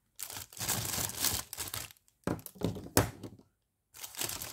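Clear plastic bag crinkling in several bursts as hands sort white plastic frame tubes inside it, with a sharp knock about three seconds in as a plastic tube is set down on the wooden table.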